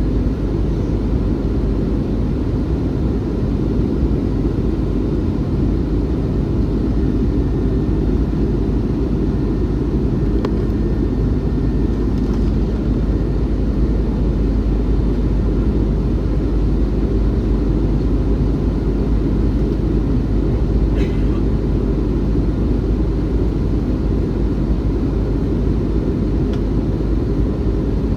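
Steady cabin noise inside an Airbus A321-211 in flight: an even, deep rushing drone of airflow and its CFM56 engines, heard from a window seat. A few faint ticks come through it.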